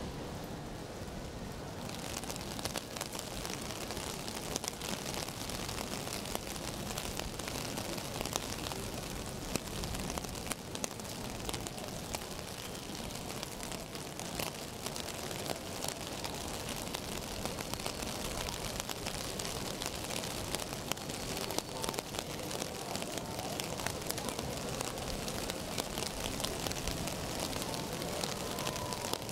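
Steady rain falling on a city street, a dense hiss of rain with many small drop ticks. The high hiss of the rain grows fuller about two seconds in.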